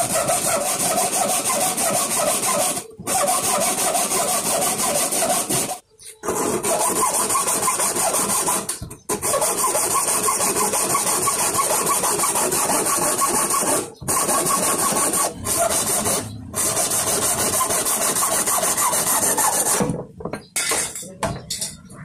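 Hacksaw cutting through a polycarbonate 5-gallon water bottle just below its neck: quick back-and-forth rasping strokes, broken by a few short pauses. The sawing stops near the end as the neck comes free.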